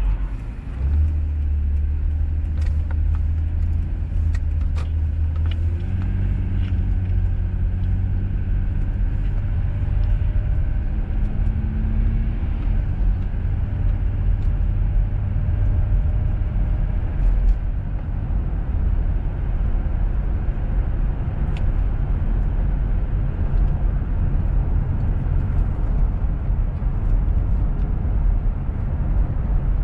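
Car driving along a road: a steady low rumble of engine and tyres, with a few faint ticks in the first few seconds.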